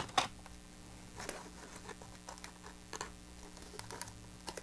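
Cardstock pieces being handled and pressed together by hand: soft rustles and light taps, with two sharp clicks at the very start.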